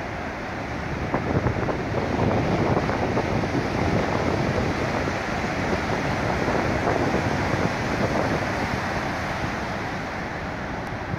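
Ocean surf breaking and foamy wash running up a sand beach. The rush grows louder about a second in, stays loud through the middle and eases off near the end.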